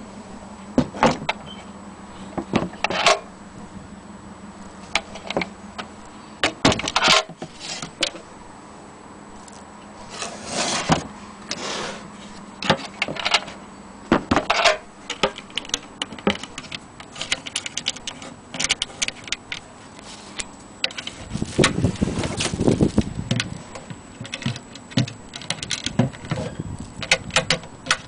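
Irregular knocks, clicks and rattles of an antique wooden sewing-machine case and its metal hand crank being handled and moved about, with a busier burst of clatter near the end.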